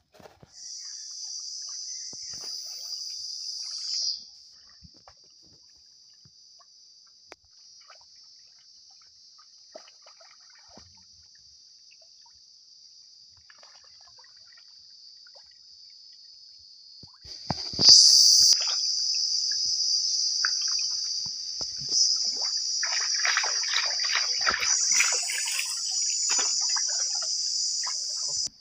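A steady, high-pitched insect drone, with water splashing and trickling as a plucked chicken is rinsed by hand in a shallow stream. There is a sharp splash about two-thirds of the way in, and the splashing is busiest near the end.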